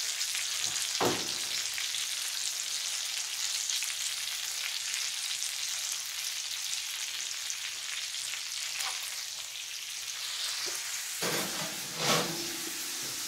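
Pork spareribs sizzling in a hot metal roasting pan fresh from the oven, a steady hiss. A sharp knock comes about a second in, and a few louder knocks near the end as the pan goes back into the oven.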